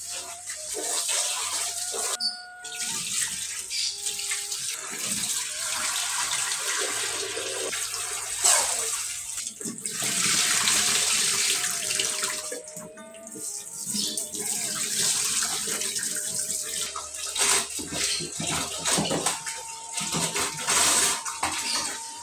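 Tap water running and splashing into a stainless steel sink as rice is washed by hand, the grains rubbed and swished in a bowl of water.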